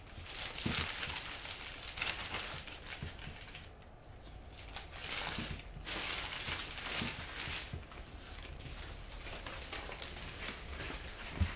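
Packing paper rustling and crinkling as it is pulled from a cardboard box, in a few stretches, with a soft thump near the end.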